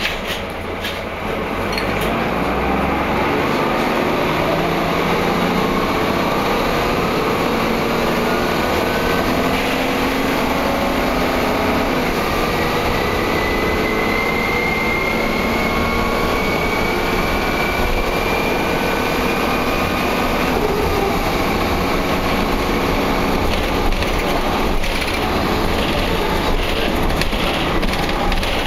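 Wright Cadet single-decker bus heard from on board, engine and drivetrain running under way with rattling, and several rising whines, one high whine climbing slowly for about eight seconds near the middle. The whines are among the strange noises this bus is known to make, which the uploader takes for the bus being in poor shape.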